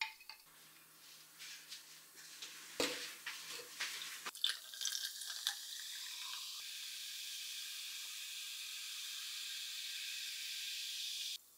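Sparkling water poured from a plastic bottle into a glass of ice, fizzing with a steady hiss that stops suddenly near the end. Before the pour, about three seconds in, there is a short run of clicks and crackles.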